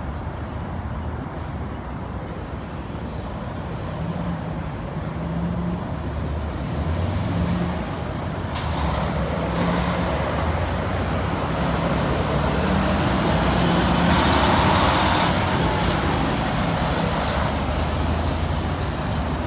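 Diesel semi-trucks with trailers running and pulling past close by: a steady low engine hum with engine and tyre noise that swells to its loudest about fifteen seconds in as a truck passes. A single sharp click sounds about eight and a half seconds in.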